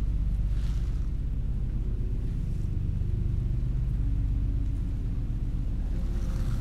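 A steady low rumbling drone with faint held tones layered above it, even in level, with no sudden sounds.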